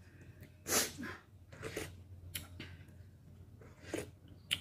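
Kimchi ramen broth being slurped from a plastic spoon in a handful of short, noisy sips and breaths. The loudest sip comes about a second in.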